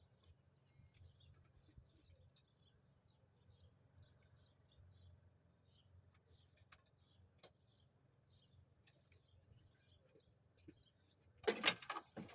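Faint, scattered light clicks and jangles of small metal parts and wire being handled, over a low hum, with a louder burst of handling noise near the end.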